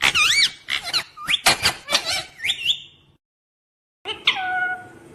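Pet parrot chirping: a rapid run of high, wavering notes that swoop up and down for about three seconds. After about a second of dead silence come more calls that drop sharply in pitch and then hold.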